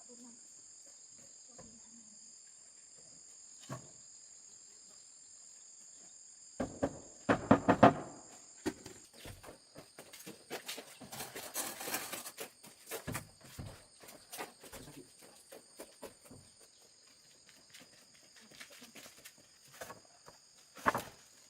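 Insects trill steadily at a high pitch throughout. A cluster of loud wooden-sounding knocks and clatter comes about seven seconds in, then scattered knocks and rustling of things being handled, and one more knock near the end.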